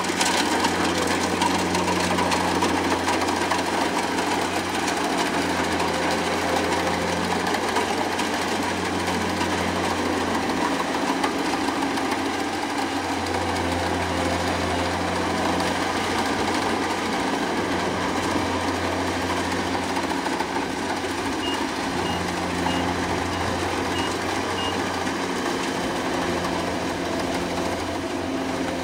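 Kubota combine harvester's diesel engine running steadily while working. About three quarters of the way through comes a short run of high, evenly spaced beeps.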